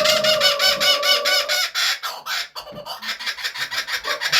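Laughing kookaburra giving its laughing call: a fast run of repeated chuckling notes, loud, with a short break about two seconds in before the laugh carries on.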